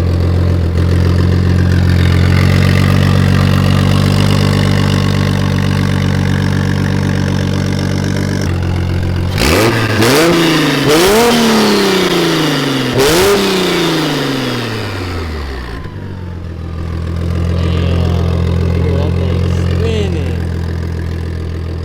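Single-turbo BMW 335i straight-six idling steadily, then revved three times in quick succession about halfway through, each rev rising and falling in pitch, before settling back to idle.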